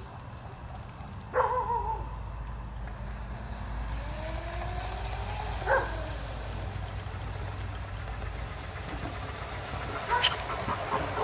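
Electric scooter ridden up a concrete driveway and pulling up close, with a cluster of clicks and knocks near the end as it arrives, over a low steady rumble. A short, loud call with a falling pitch comes about a second and a half in.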